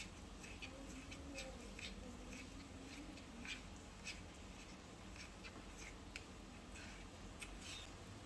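A small utensil stirring thick brownie batter in a miniature steel bowl: faint, irregular clicks and scrapes against the bowl, about two a second.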